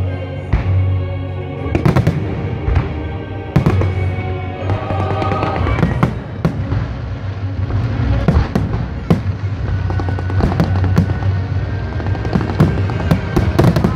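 Aerial fireworks shells bursting one after another, with sharp reports that come thicker in the second half, over music with a steady low bass.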